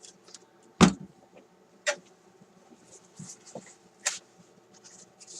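Workbench handling noises: a sharp knock about a second in, a second knock near two seconds, and light clicks and rustling, as the radio chassis and materials are handled.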